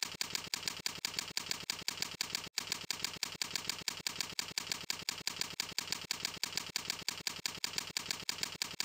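Computer keyboard typing: rapid, evenly spaced key clicks, about six a second, with one brief break about two and a half seconds in.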